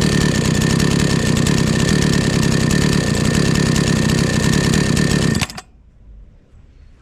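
Hyundai two-stroke chainsaw idling steadily, then shut off about five and a half seconds in, the engine stopping abruptly.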